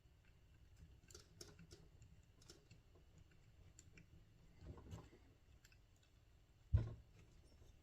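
Faint scattered clicks and ticks of a screwdriver and small screws being handled while a screw is driven into a model helicopter's plastic frame, with one dull thump a little before the end.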